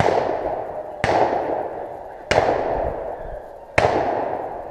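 Four shotgun shots a second or so apart, each trailing off in a long fading echo.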